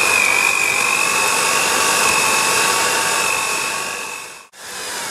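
Electric hand mixer beating cake batter, its motor running with a loud, steady high whine. It cuts off suddenly about four and a half seconds in; after a short break the motor is heard again, quieter, with its pitch falling as it slows down.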